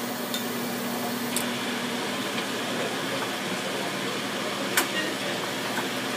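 Hamada single-colour offset press running with its vacuum feed pump on as a sheet is drawn through: a steady mechanical hum and hiss, with one sharp click about five seconds in.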